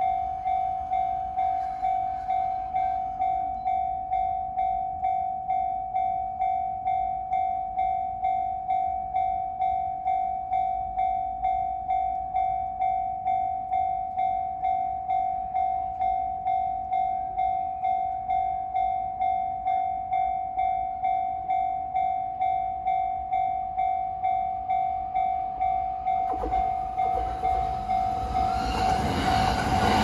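A level-crossing warning bell ringing steadily at about two strokes a second. About four seconds from the end, a JR E233-series electric train grows louder as it approaches and runs over the crossing.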